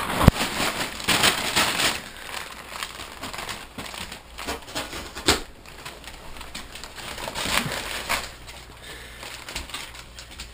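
Christmas gift-wrap paper crinkling, rustling and tearing as dogs pull and chew at it, an irregular crackle with a couple of sharp clicks.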